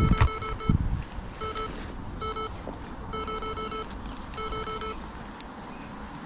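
Short electronic beeps of one steady pitch, sounding in quick runs of two to five several times, from a handheld device. Low wind rumble on the microphone dies away about a second in.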